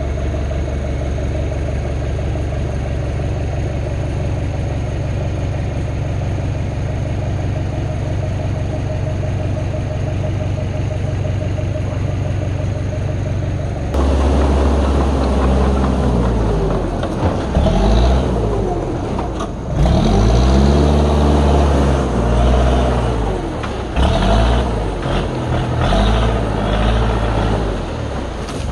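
Dresser 100G track loader's diesel engine idling steadily, then, about halfway through, revving up and down repeatedly as the loader works through brush. A few sharp knocks come in the second half.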